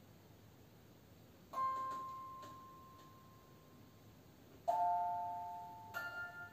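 Sparse bell-like chime notes, each struck once and left to ring and fade: a single note about a second and a half in, a two-note chord near the middle, and a higher note near the end.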